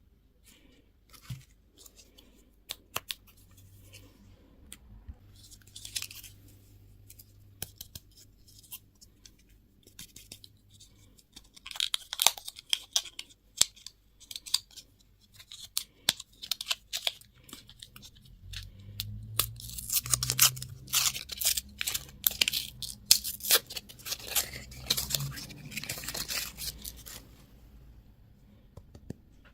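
Plastic candy and toy packaging being handled and torn open: scattered clicks and taps, then two stretches of dense crinkling and tearing, the longer one in the second half.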